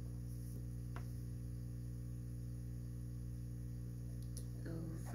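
Steady low electrical mains hum, with one faint click about a second in.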